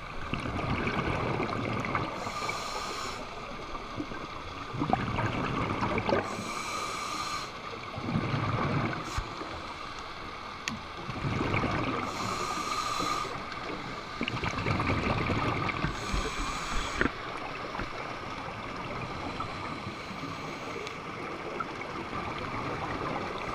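Scuba regulator breathing heard underwater: a high hiss on each inhale through the demand valve, alternating with a bubbling rumble on each exhale, about four slow breaths in all.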